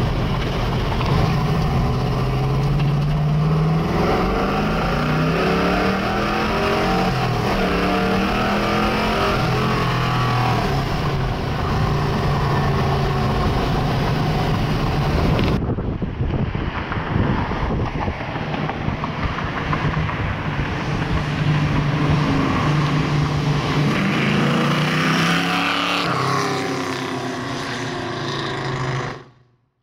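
1969 Camaro Z/28's 302 V8 with a cross-ram intake, pulling through the gears. The engine note climbs and drops back with each upshift, first heard inside the cabin, then from outside as the car drives away. It fades out just before the end.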